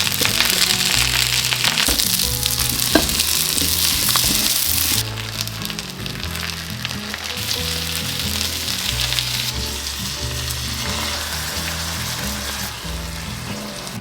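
Food sizzling as it fries in a pan, loudest for the first five seconds and then dropping to a quieter sizzle.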